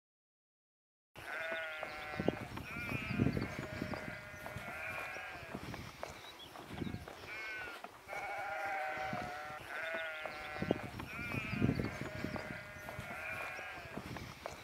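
Sheep bleating, several calls overlapping and repeating, starting about a second in.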